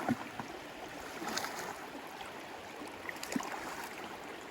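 River water rushing steadily over rapids, with a few light knocks about a second apart in places.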